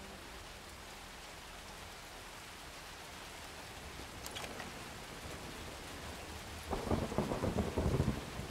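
Steady rain falling. About seven seconds in, a low rumble of thunder rolls in for a second or two and is the loudest sound.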